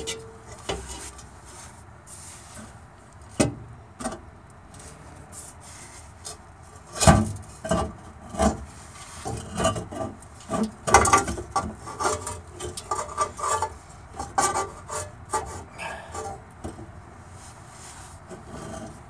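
New muffler and exhaust pipe of a 1961 Land Rover Series II being worked into place by hand under the vehicle, knocking and scraping against the chassis and hanger. A few scattered knocks at first, then busier scraping and rattling from about seven seconds in.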